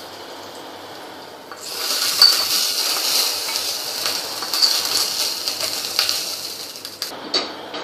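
Hot tempering oil with mustard seeds and curry leaves sizzles as it is poured from a small pan onto cold curd rice, starting about a second and a half in. A steel spoon scrapes and clinks against the pan as it is emptied.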